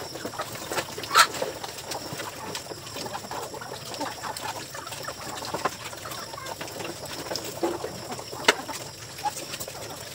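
Native chickens clucking over the scattered small noises of piglets feeding from a dish. Two short, sharp sounds stand out, about a second in and near the end.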